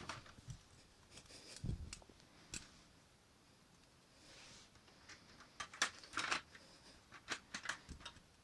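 Plastic clicks and clacks from a Lego pump-action shotgun being handled and worked: irregular sharp snaps and knocks in two bunches, with a soft rustle between them.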